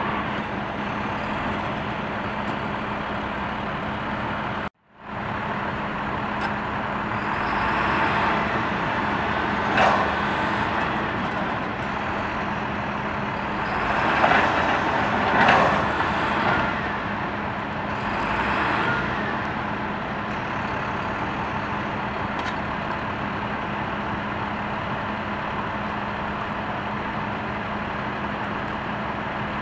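Utility bucket truck engine running steadily with a constant low hum, swelling louder several times in the middle. The sound drops out for a moment about five seconds in.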